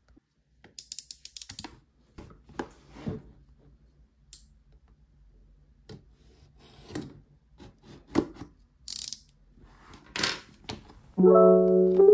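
Unboxing a packaged desk fan: a quick run of crackling clicks from the plastic wrap about a second in, then scattered rubs, taps and scrapes of fingernails picking at the box's seal sticker and of hands handling the cardboard box. Soft piano music comes in about a second before the end.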